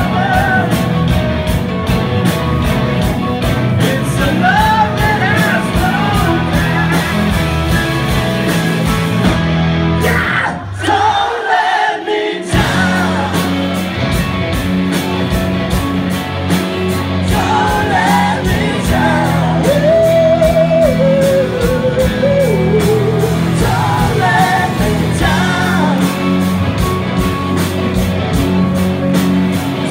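A rock band playing loud live, with sung vocals over guitars and drums. About a third of the way in, the drums and bass drop out for about two seconds, then the full band comes back in.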